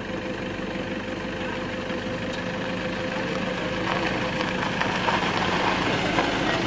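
Safari jeep engines idling steadily, a low even hum. The sound grows a little louder and busier from about four seconds in.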